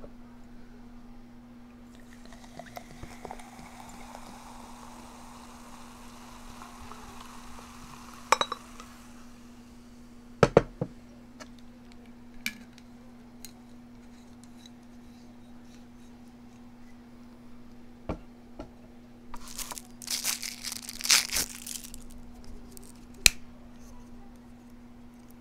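Liquid poured into a glass for several seconds, its pitch slowly rising as the glass fills. Then a few sharp knocks and clinks of glass and tableware, and a couple of seconds of plastic packaging crinkling near the end, over a steady low hum.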